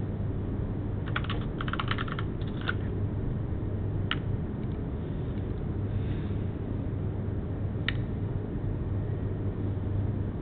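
Computer keyboard typing: a quick run of keystrokes about a second in, then two single key clicks later on, over a steady low hum.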